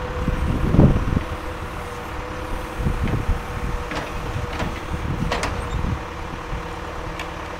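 John Deere backhoe's diesel engine running steadily while it digs, with a few sharp knocks from the work.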